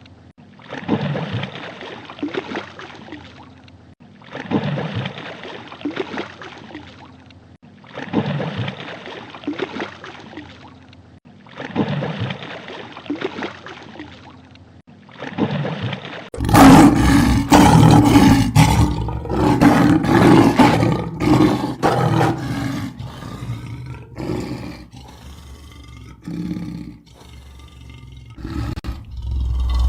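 A large animal roaring in a slow series of breathy calls, about one every four seconds, then after a sudden cut a louder stretch of deeper, pitched animal calls.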